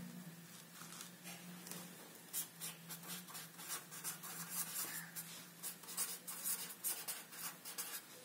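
Pen writing by hand on paper: a run of short, quick scratchy strokes starting about a second in.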